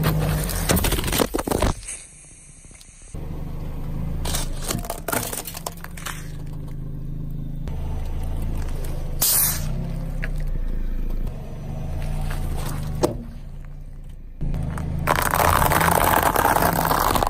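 A car tyre rolling over and crushing things in turn, with clicks and crackles over a low steady hum: a plastic soda bottle flattening and splitting, an inflatable duck toy squashed with a sharp burst around the middle, and near the end a pile of dry spiral pasta crackling densely as it shatters under the wheel.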